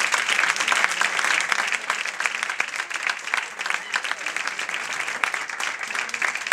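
Audience applauding, a dense run of clapping that slowly thins and fades.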